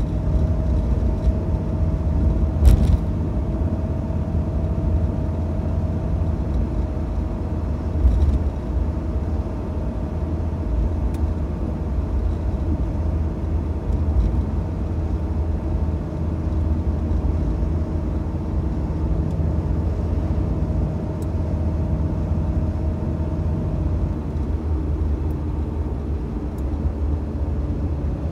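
Mitsubishi Debonair classic car driving, heard from inside the cabin: a steady low engine and road rumble with a thin steady whine that fades out near the end. There is a brief thump about three seconds in and another about eight seconds in.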